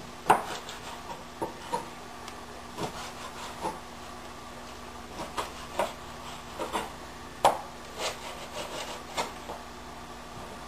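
Kitchen knife cutting raw chicken tenders into chunks, the blade knocking irregularly on a cutting board with soft scraping between strokes.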